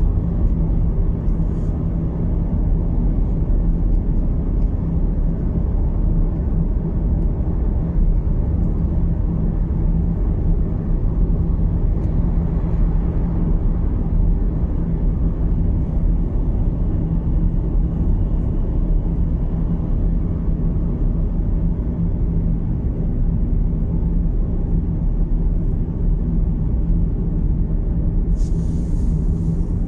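Steady low rumble of road and engine noise inside the cabin of a moving VW Golf Mk7, with a brief hiss near the end.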